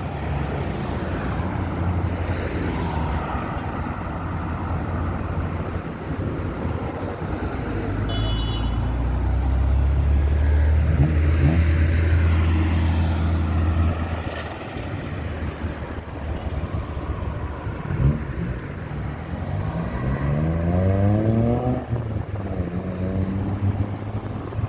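Road traffic: cars and trucks running past. A heavy vehicle's engine rumbles loudest from about a third of the way in to just past halfway, and near the end another vehicle accelerates with its engine rising in pitch.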